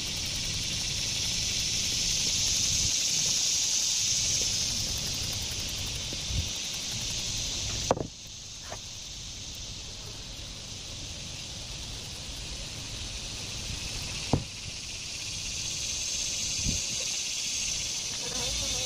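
A steady, high-pitched insect drone that swells and fades, cutting off suddenly about eight seconds in and building again toward the end, with a couple of sharp clicks.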